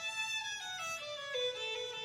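Violin playing a melody, its notes stepping downward in pitch one after another.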